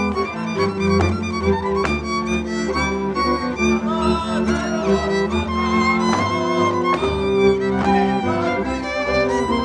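Hungarian folk string band playing a Gömör dance tune: a fiddle leads the melody over held accompanying chords and a bass line, in a steady dance rhythm.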